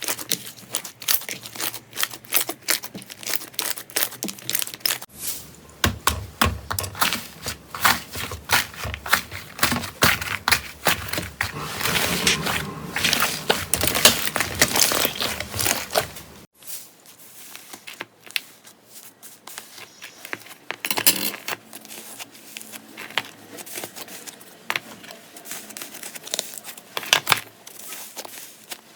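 Slime being squished and pressed by hand, giving dense crackling and popping clicks. The sound changes abruptly twice, about five seconds in and again past the middle.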